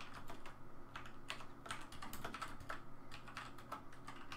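Typing on a computer keyboard: quick, irregular key clicks in short runs.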